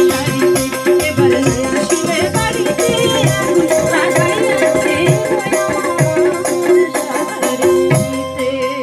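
Live folk song: a woman singing into a microphone over a steady beat on a hand drum, with rattle-like percussion and steady held notes underneath.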